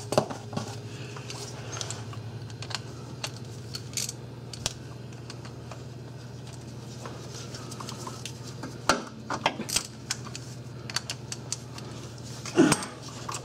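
Irregular light clicks and taps of hand and tools on the starter solenoid's cable terminals, with a quick run of clicks about nine seconds in and another near the end, over a steady low hum.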